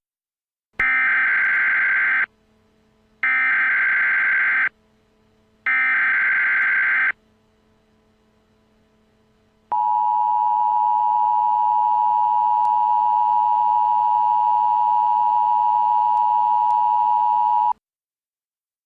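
Emergency Alert System tones: three short bursts of SAME digital header data, about a second apart, followed by the two-tone EAS attention signal (853 and 960 Hz) held steadily for about eight seconds and cut off abruptly. This is the standard sequence that opens an alert before the spoken message.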